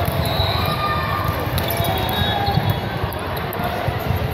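Echoing gym ambience during a volleyball match: balls thumping on the court floor over a steady low rumble of the hall.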